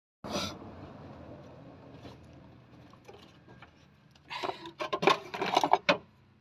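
Metal parts knocking against each other as a car's old alternator is worked loose and pulled out of its mounting bracket: a sharp clunk near the start, then a quick run of clanks and scrapes with some ringing about four seconds in.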